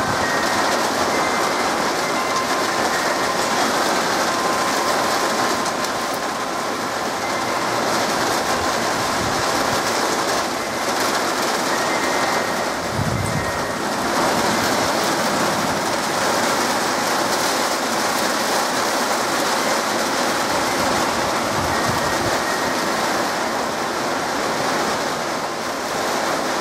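Heavy rain pouring steadily in a downpour, with a brief low rumble about halfway through.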